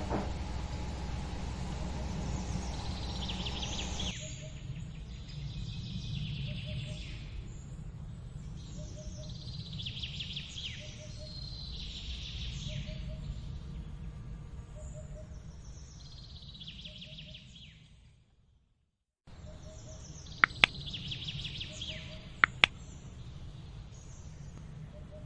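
Birds chirping in repeated short falling calls over a steady low hum, with a soft tone repeating about every second and a half. The sound fades out briefly about three-quarters of the way through, then comes back with two sharp clicks.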